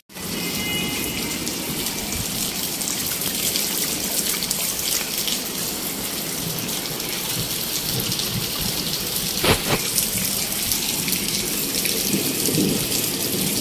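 Steady rain falling on a concrete courtyard and rooftops. A single knock sounds about nine and a half seconds in.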